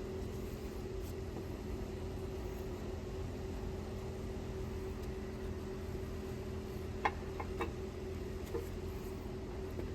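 Steady mechanical hum of shop equipment, with a few light metal clicks about seven seconds in as engine parts are handled while the camshaft is fitted into the block.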